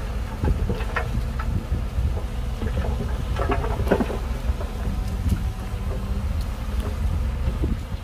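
Dump truck tipping a load of rock and soil: loose rocks clatter out of the raised bed in several bursts over the steady low running of heavy diesel engines.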